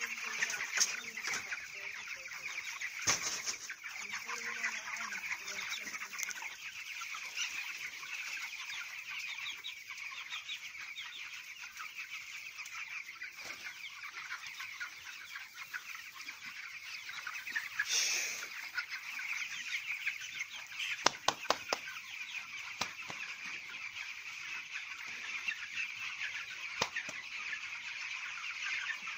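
A large flock of young broiler chickens peeping continuously, many high-pitched calls overlapping into a steady chorus. A few sharp knocks cut through, a cluster of them about three-quarters of the way in.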